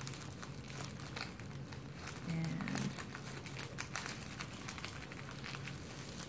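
A menstrual pad and its plastic wrapper crinkling and crackling in many small clicks as they are pressed and smoothed by hand.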